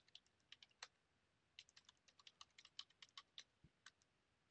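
Faint computer keyboard typing: quick separate keystrokes, a few at first, then after a short pause a fast run of strokes.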